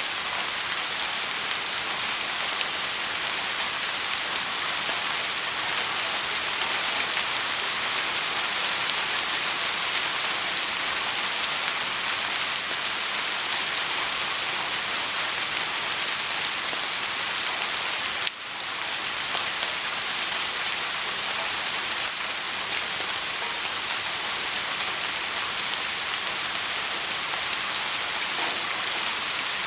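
Soft rain falling steadily, an even hiss of many fine drops, with a brief dip in level about two-thirds of the way through before it recovers.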